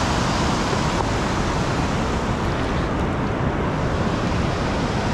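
Shallow surf washing in and out over the sand at the water's edge, a steady rushing noise, with wind on the microphone.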